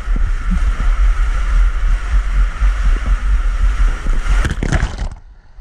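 Rushing water and a steady buffeting rumble on the camera microphone during a ride down an enclosed water-slide tube. Near the end there is a short burst of splashing, and then the sound suddenly drops to a muffled hush.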